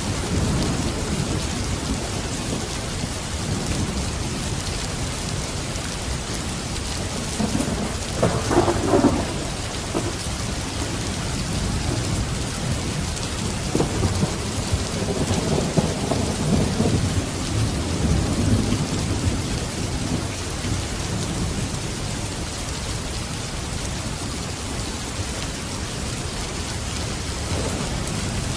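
Steady rain with rolling thunder. A louder, sharper thunderclap comes about eight seconds in, and a longer rumble swells and fades in the middle.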